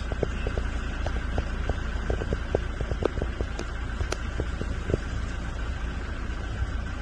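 Cyclone wind buffeting the phone's microphone in a steady low rumble, with rain hiss and scattered light taps.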